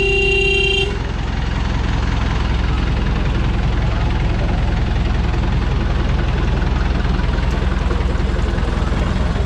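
Miniature joy-train locomotive sounding a horn blast about a second long, then its engine running steadily as the train moves slowly past.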